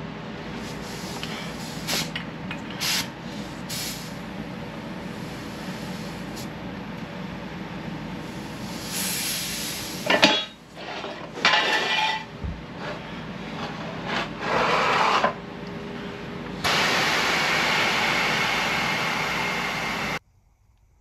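Steel jack stands being pulled from under a Jeep, with metal clicks and knocks, then short bursts of air hiss and a steady hiss lasting about three and a half seconds as the Vevor triple-bellows air jack lets out its air and lowers the axle; the hiss stops abruptly.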